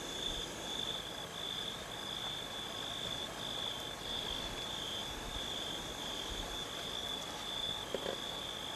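Night-time chorus of calling insects or frogs: a steady high trill, broken by short gaps about once a second.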